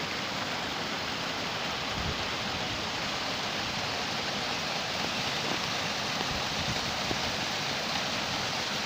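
Steady rush of flowing water, an even noise with no distinct events.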